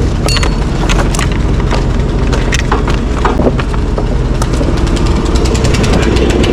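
A motor vehicle engine running steadily, with repeated sharp knocks and cracks over it, typical of wood and debris being dumped.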